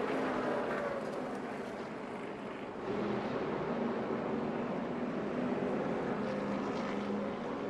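NASCAR race truck engines running on the track, mixed with the general noise of the track, heard through a TV broadcast. The level rises a little about three seconds in.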